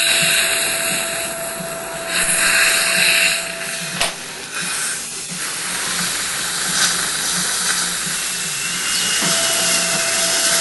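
Dental implant drill whining steadily as it cuts the osteotomy into the jawbone, over a steady hiss of surgical suction and irrigation. The whine stops with a click about four seconds in and comes back near the end.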